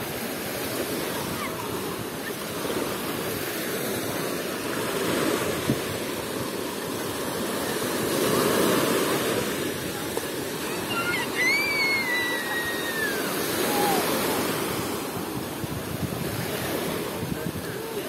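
Small Black Sea waves breaking and washing over a shallow sandy shore, the surf swelling and easing every few seconds. About eleven seconds in comes a brief high falling call.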